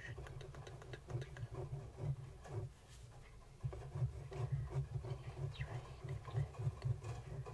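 Fine-tipped pen scratching on paper close to the microphone in many short, quick strokes, with a brief lull about three seconds in.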